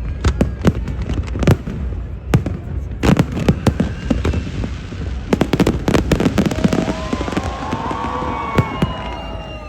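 Fireworks display: a dense run of bangs and crackling pops, thickest from about three to six seconds in, with rising and falling tones over the bangs in the last few seconds.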